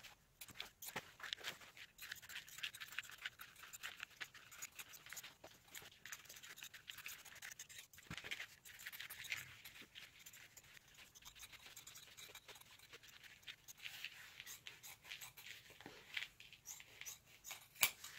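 Faint, irregular snipping and rustling: scissors cutting through and handling pieces of upholstery cover material.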